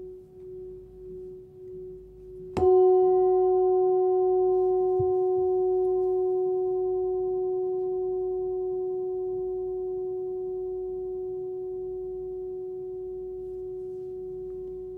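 A 13.5 cm singing bowl tuned to F# (367 Hz) rings with a steady pure tone. Its fading, pulsing tail is cut by a fresh strike about two and a half seconds in. The bowl then rings loud and clear with higher overtones above its fundamental, slowly dying away.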